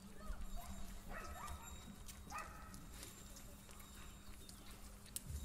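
Cattle walking on a concrete lane, their hooves clopping faintly, with three short high-pitched calls.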